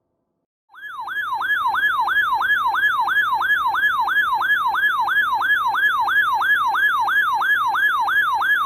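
Electronic siren tone in a fast yelp pattern, sweeping up and down about three times a second, used as an emergency alert sound. It starts abruptly under a second in after silence and holds steady and loud.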